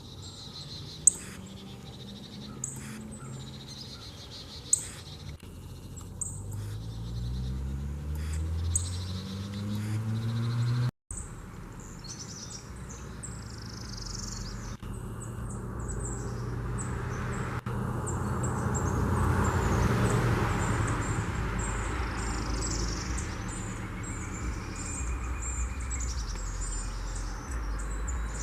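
Birds chirping with short, sharp notes throughout, over a few loud clicks early on. A low hum rises in pitch and cuts off abruptly around eleven seconds in. Later a broad rushing noise swells to a peak and eases off.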